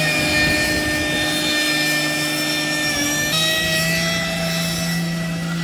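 Supercharged, turbocharged diesel pickup engine held at high revs during a burnout, with a steady high whine over the engine. About three seconds in, the pitch steps up a little and holds.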